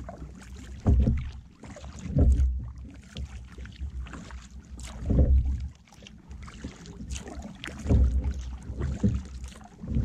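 Kayak being paddled on open water: a splash and swish from each paddle stroke, coming every one to three seconds, with low rumbles of wind on the microphone.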